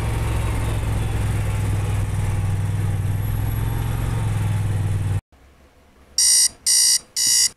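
Vehicle driving along a road, a steady low engine and road rumble that cuts off abruptly about five seconds in. Then three loud electronic alarm beeps in quick succession, about two a second.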